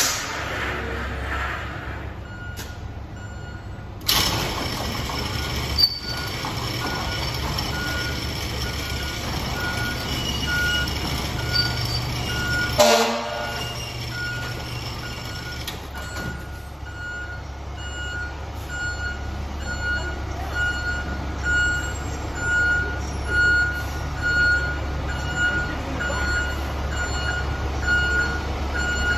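Fire department aerial ladder truck's diesel engine running steadily as it backs into the station bay, its reversing alarm beeping about once a second and growing louder in the second half. A short loud burst sounds about halfway through.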